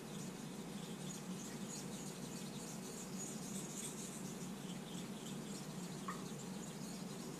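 Straight razor blade stroked across a wet King 1000/6000 combination waterstone: faint, irregular scraping of steel on the stone, over a steady low background hiss.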